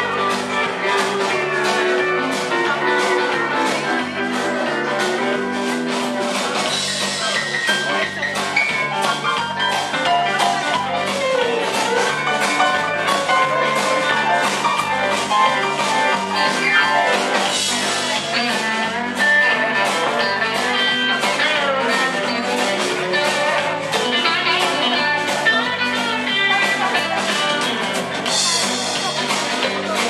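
Band music with guitar and a steady drum beat.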